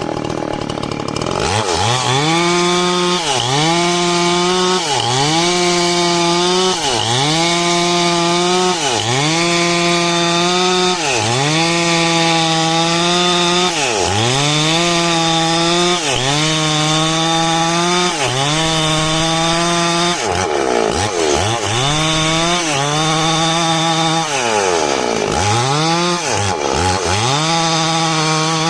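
Stihl chainsaw ripping a coconut-palm log lengthwise into a beam. The engine runs at high revs, and its pitch drops sharply and climbs back about every two seconds, with a few deeper dips near the end.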